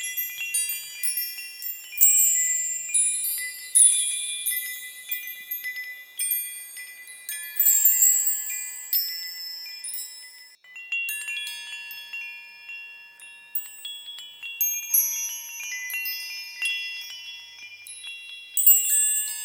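Small high-pitched bells chiming in irregular clusters, many notes ringing on together and slowly fading.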